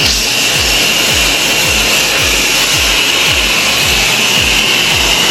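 Handheld shower head spraying water into a bathtub with a steady, loud hiss. Background music with a deep, steady beat runs under it.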